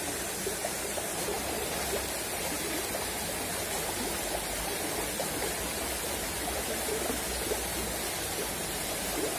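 Shallow, rocky river flowing and babbling over stones, a steady rushing water sound.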